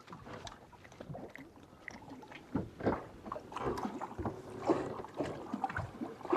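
Scattered light knocks and rustles as a freshly caught black crappie is handled and unhooked from a jig by hand, with a few sharper clicks about three seconds in and again near five seconds.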